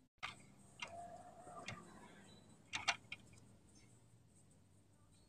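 Faint, irregular small clicks and taps of fingers on the plastic of a Renault Laguna II turn-signal switch as a short screw is turned by hand into a hole drilled in the switch's clip, with a close pair of clicks near the end of the activity and a short faint squeak about a second in.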